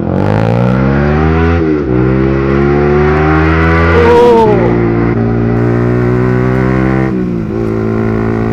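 Yamaha R15 V3's single-cylinder engine through a loud aftermarket exhaust, accelerating hard: the pitch climbs, drops at an upshift a couple of seconds in, climbs again and then holds steady, with another brief dip near the end. A short rising-and-falling tone cuts in about four seconds in.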